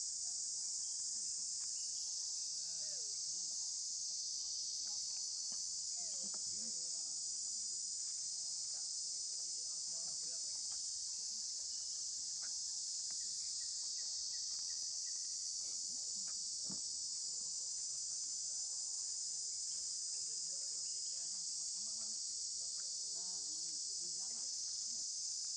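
Steady, unbroken high-pitched insect chorus, such as crickets or cicadas.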